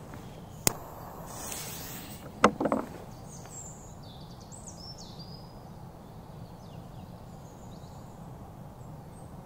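A sharp click and a brief hiss as a small firecracker is lit, a thud about two and a half seconds in as it is tossed down, then a few faint bird chirps over quiet open-air ambience while the fuse burns.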